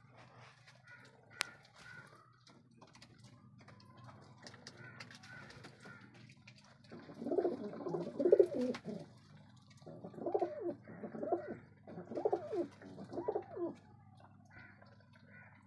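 Domestic pigeons cooing: a run of about five low cooing phrases starting about halfway through, over faint scattered ticks.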